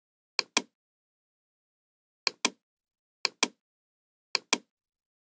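Computer mouse clicks: four pairs of sharp clicks, each a button press and release about a fifth of a second apart, as menu items and dialog buttons are clicked. Dead silence between them.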